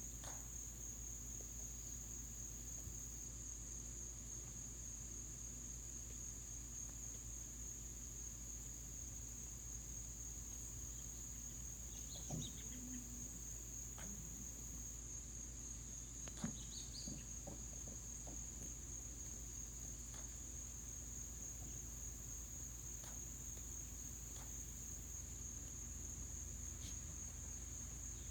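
Crickets trilling steadily at one high pitch, over a low hum. A couple of faint, short sounds come about twelve and sixteen seconds in.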